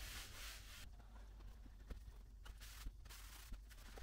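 Near silence: room tone with a few faint, scattered light clicks and rustles.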